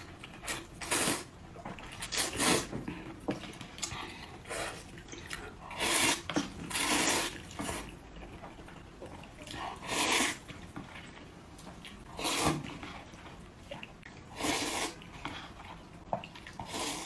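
Close-up eating sounds: noodles being slurped and chewed, wet sucking bursts coming irregularly every second or two.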